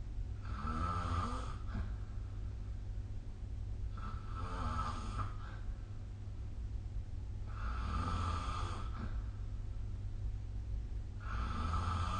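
A sleeping person snoring: four snores about every three and a half seconds, each about a second long, over a steady low background hum.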